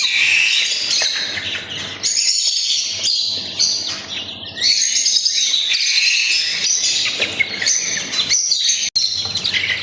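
A brood of young chicks, Kadaknath and desi chicks, peeping constantly while they feed on grain: many high, overlapping cheeps.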